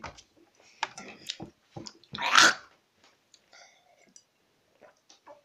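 Someone gulping water from a plastic cup: a run of short swallowing and mouth clicks, with one louder noisy sound about two seconds in.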